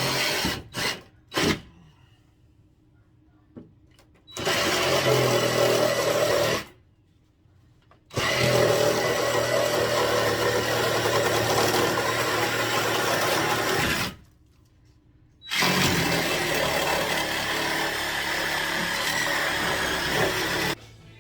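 Handheld power tool working wood: two quick blips, then three runs of a few seconds each, with short pauses between.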